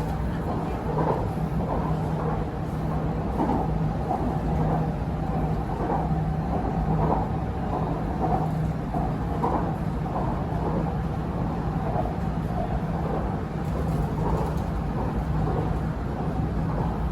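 Cabin of an MRT Purple Line electric metro train running between stations: steady running noise with a constant low hum and a fainter higher tone.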